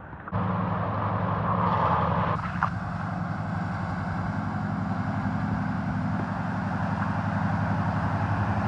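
Full-size pickup truck engine running steadily as the truck drives through deep flood water, with water rushing and splashing around its wheels and bow wave.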